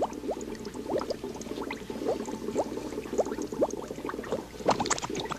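Soft bubbling of liquid: many small quick upward-gliding blips and ticks over a steady low hum.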